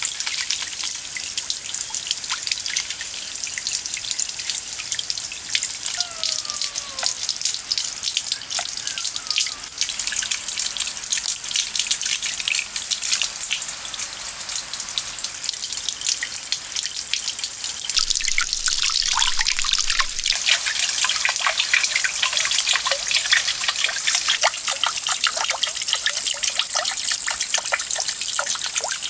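A thin stream of water pouring from a fountain bowl into a small pond, trickling and splashing steadily with many rapid drips.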